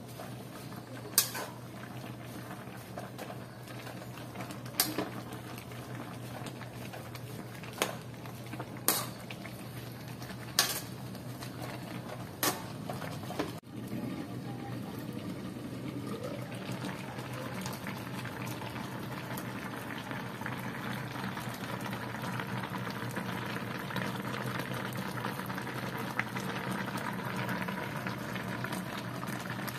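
A metal spoon knocking against an aluminium pot while stirring greens, about six sharp clinks spread over the first dozen seconds. After a break, a pot of saluyot, okra and banana blossom simmers with a steady bubbling hiss that slowly gets louder.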